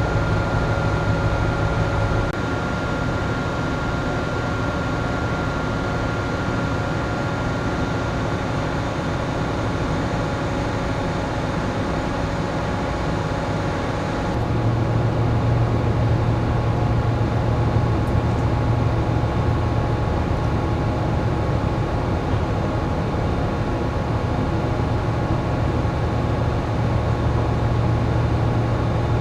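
Steady drone of a moored ship's onboard machinery and ventilation, with several steady hum tones. The hum changes abruptly about two seconds in and again about halfway through.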